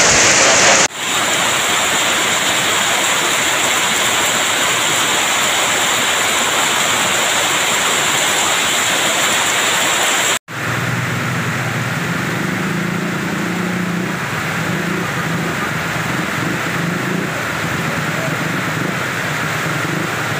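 Loud, steady rushing of a cold lahar, a muddy flood of volcanic ash and debris pouring down a river channel. An abrupt cut about a second in gives way to heavy rain pouring down, and a second abrupt cut about ten seconds in brings back the lahar's rushing water.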